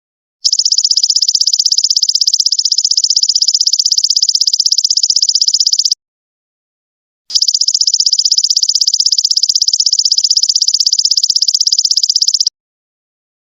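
Golden locust (belalang emas) calling: a loud, high, rapidly pulsed buzzing trill that runs for about five and a half seconds, stops for just over a second, then runs again for about five seconds before cutting off.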